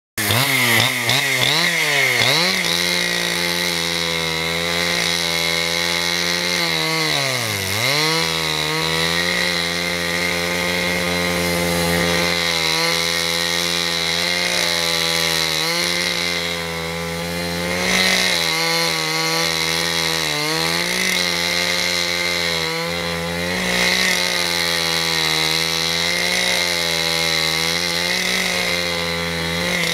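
Husqvarna two-stroke chainsaw sawing wood, held at high revs. It revs up and down at the start, drops sharply and climbs back about a quarter of the way in, then runs steadily with small wavers and a few brief dips.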